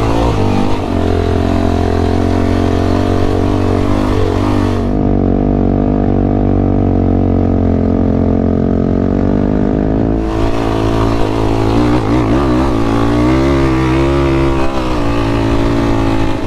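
Sport quad engine running hard under throttle while riding sand dunes, pitch mostly steady, with quick rises and falls in the revs about two-thirds through. A heavy low wind rumble sits underneath.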